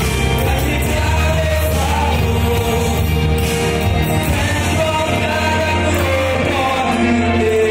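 A man singing a song into a handheld microphone over accompanying music.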